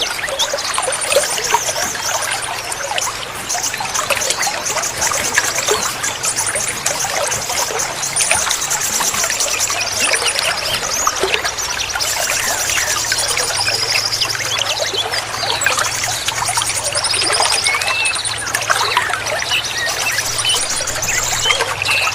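Water trickling and splashing steadily, with small birds chirping over it and fast high-pitched trills coming and going.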